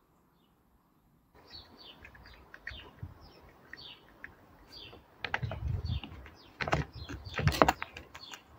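Grey squirrel cracking and chewing a peanut in its shell close to the microphone: sharp clicking crunches, loudest in the second half. Small birds chirp over and over in the background, starting about a second in.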